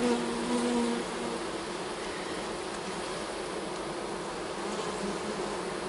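Honey bees buzzing steadily in a dense mass on a frame of capped brood lifted from an open hive.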